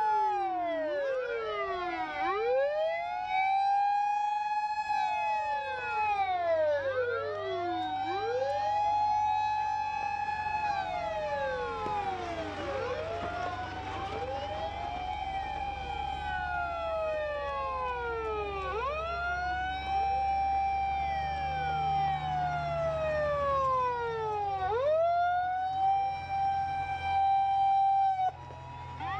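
Sirens of a convoy of Japanese fire-service emergency vehicles driving past, several wailing at once and out of step. Each holds a high note, then drops and climbs back every few seconds, over the low rumble of heavy truck engines.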